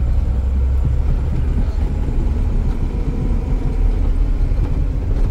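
Mercedes-Benz 1418 4x4 truck's diesel engine and running gear driving along a rough, corrugated dirt road: a steady, loud low rumble with a jittery, jolting texture.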